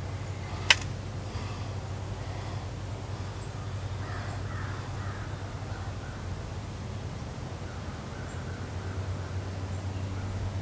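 Woodland ambience with a single sharp click about a second in, the loudest sound. A few faint, harsh animal calls follow around the middle, over a steady low hum.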